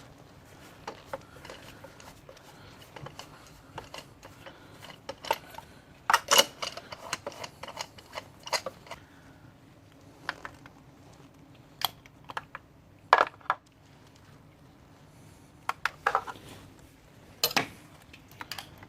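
Scattered metallic clicks and clinks of hand tools and loose parts as the four spark plugs are unscrewed from the engine, with the busiest clatter about six seconds in and single sharp clinks later on.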